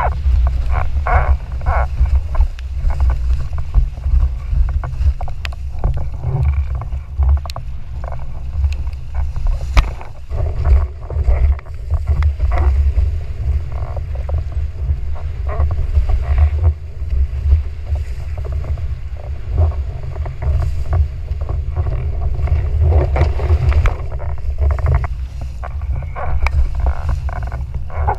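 Wind buffeting the microphone of a rig-mounted action camera on a sailing windsurf foil board, a heavy rumble that rises and falls with the gusts. Water rushes and splashes against the board underneath it.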